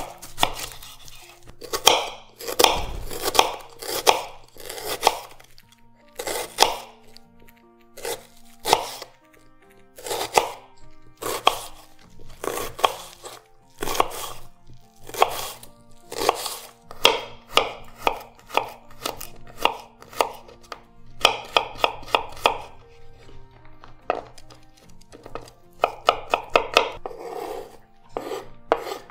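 Knife chopping vegetables on a cutting board: single cuts and quick runs of several strokes, with soft background music underneath.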